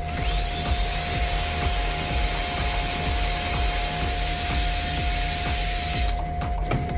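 Porter-Cable cordless drill boring a No. 16 tap-drill hole for a 12-24 thread through a metal bracket bar held in a vise. The drill runs at a steady whine, then stops suddenly about six seconds in as the bit is pulled out.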